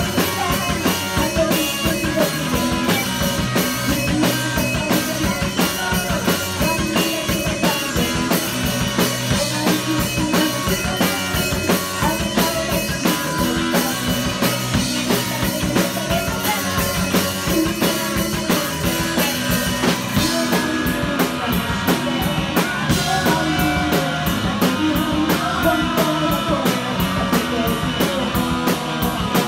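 Live rock band playing: drum kit keeping a steady driving beat under electric guitar and bass. About two-thirds of the way through, the cymbals' hiss drops away and the drums thin out.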